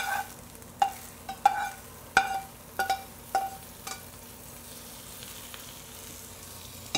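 Metal tongs and frying pans knocking together, about eight sharp ringing clanks in the first four seconds as spinach is scraped from one pan into another. Under them and after them comes a faint steady sizzle of frying.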